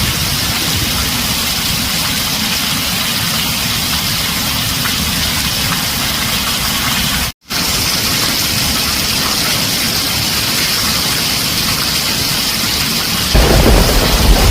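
Heavy rain pouring on a tin roof, a steady dense hiss that cuts out for a split second about halfway. Near the end a low rumble of thunder comes in.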